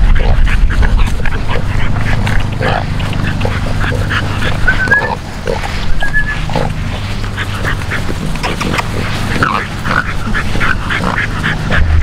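Exotic bully dogs and puppies making many short, high vocal sounds in quick succession, over a steady low rumble.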